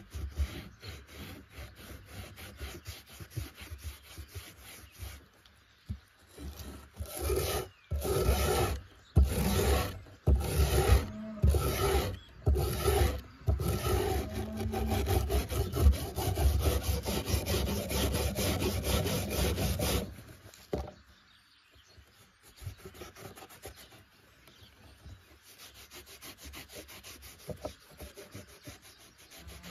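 The rusted steel blade of a pair of grass shears is being scrubbed by hand against a wooden board to take off the rust. It starts with light, quick sandpaper strokes. In the middle come louder strokes of a steel wire brush, about one a second, running into steady scrubbing, and for the last several seconds it goes back to light rubbing.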